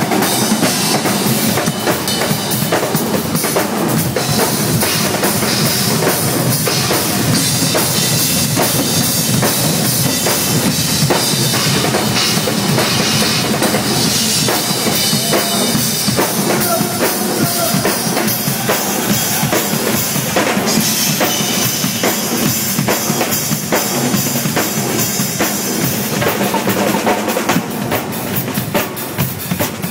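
Drum kit played without a break: bass drum, snare and a constant wash of cymbals in a busy beat. Near the end the playing turns into more separate, spaced hits.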